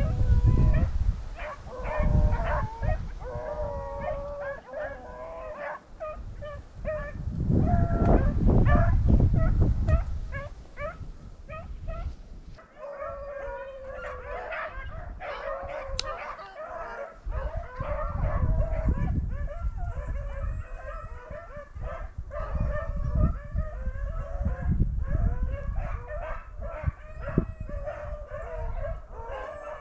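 A pack of rabbit hounds baying and bawling on a running rabbit, several voices overlapping. Wind buffets the microphone now and then, loudest near the start and again about a third of the way in.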